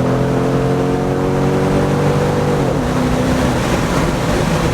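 C6 Corvette's V8 through a straight-piped, muffler-delete exhaust, running loudly at steady revs, then dropping sharply in pitch about two and a half seconds in.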